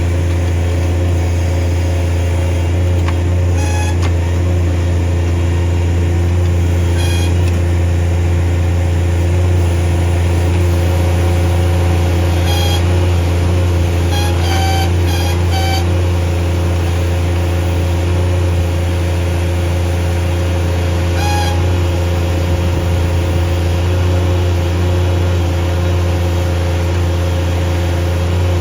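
Bobcat MT100 mini track loader's diesel engine running steadily under hydraulic load while working an M06 backhoe attachment, with several short high squeaks: the hydraulic valves hitting relief.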